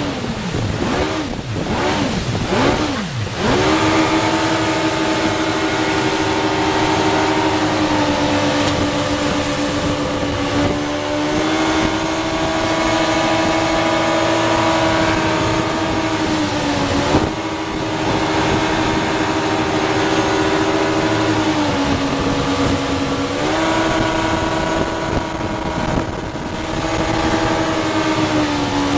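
Motorboat engine running at speed while towing an inflatable tube, its pitch wavering quickly up and down in the first few seconds, then holding steady with a few brief dips and rises. Rushing wind and water run underneath.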